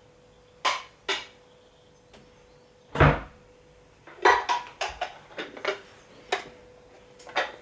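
Crockery bowls clattering as they are handled: a run of sharp knocks and clinks, with one heavier thump about three seconds in and a quick cluster of clinks soon after.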